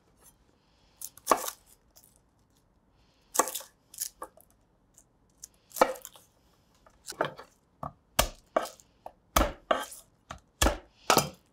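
Chef's knife knocking on a wooden cutting board as garlic cloves are trimmed and smashed under the flat of the blade to loosen their skins. About a dozen sharp, irregular knocks, sparse at first and coming closer together after about seven seconds.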